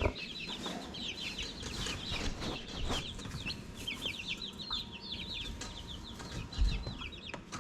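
Baby chicks peeping constantly, a dense run of short, high, falling cheeps, with a dull low bump near the end.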